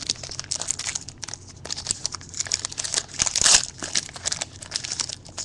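Foil wrapper of a Topps Finest football card pack crinkling and tearing as it is pulled open by hand, in irregular crackles that are loudest about three and a half seconds in.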